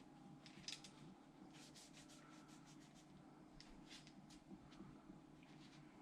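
Faint rubbing of a cloth wiping down a rifle scope, a series of short irregular strokes over a low steady room hum.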